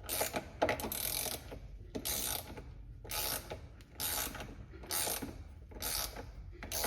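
Ratchet wrench clicking in short bursts about once a second as it turns the screw of a bushing press tool, drawing a steering rack bushing into the rack, a fit that is going in hard.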